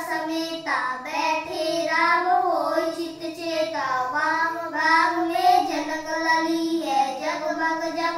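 Children singing a Hindi devotional aarti to Ram, one unbroken melodic line.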